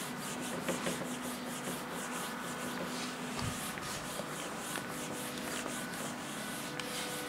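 Whiteboard eraser wiping across a whiteboard in a run of repeated back-and-forth rubbing strokes.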